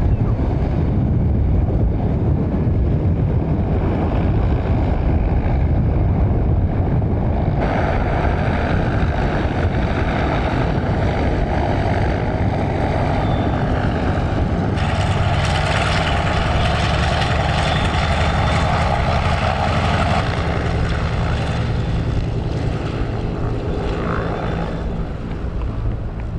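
Antonov An-2's nine-cylinder radial engine and propeller running steadily with a deep rumble. The tone shifts abruptly about 7.5, 15 and 20 seconds in.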